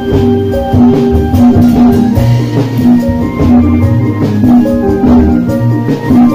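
Loud obrog street music through a big sound system: a melody of held notes over a low bass line, with large plastic barrels beaten with sticks as drums.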